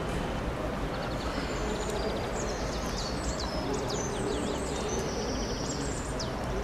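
Small songbirds chirping and trilling, many short high calls, over steady background noise.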